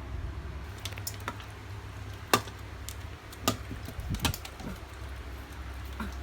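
Several short, scattered knocks and taps, the loudest about two seconds in, over a steady low rumble.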